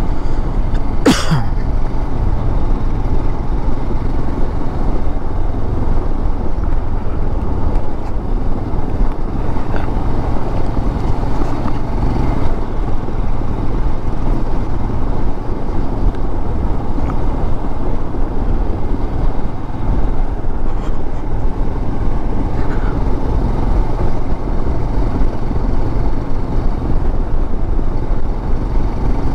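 Motorcycle being ridden on a gravel track: steady engine and wind rumble. About a second in there is one brief sharp sweep that falls in pitch.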